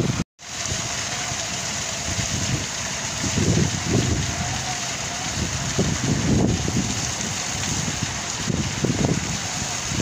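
Water from a small artificial rock waterfall splashing steadily into a pond, with wind buffeting the microphone in low gusts. The sound drops out for a moment just after the start.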